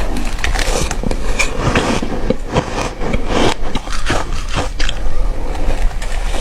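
Ice being bitten and crunched close to the microphone: a dense, irregular run of sharp cracks and crunches.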